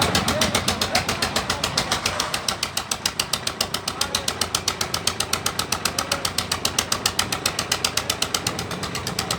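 Concrete mixer machine running with a rapid, even chugging of about seven beats a second.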